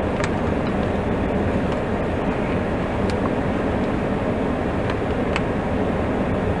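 Car air conditioning blower running at full blast inside the cabin: a steady, loud rush of air, with a few light clicks at about a quarter second, three seconds and five seconds in.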